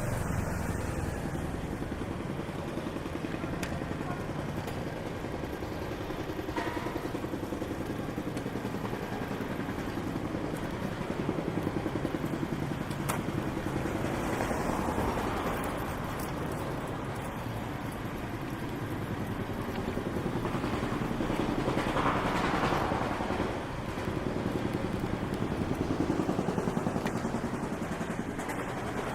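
City street traffic: a steady hum of road noise, with passing vehicles swelling and fading several times.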